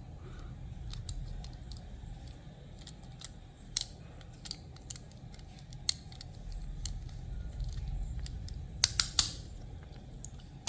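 Small sharp plastic clicks and taps as a plastic body kit is pressed onto a diecast toy car, with a quick cluster of louder clicks near the end.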